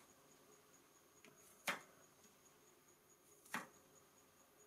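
Two short, sharp clicks about two seconds apart, from a plastic screen-protector film being handled and lined up against a Thermomix touchscreen, with a fainter tick before the first; otherwise near silence.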